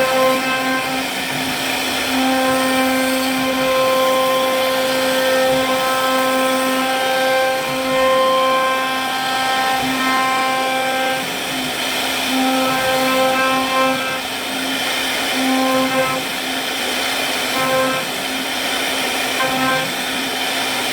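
CNC router spindle running with a steady whine over a rushing noise as it carves wood. The higher tones of the whine fade in and out every few seconds.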